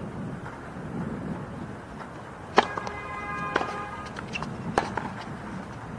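Tennis ball struck by rackets in a short rally: the serve about two and a half seconds in is the loudest hit, with the return about a second later and two fainter hits after it. A ringing tone of several pitches lingers for about a second and a half after the serve, over a steady low outdoor background.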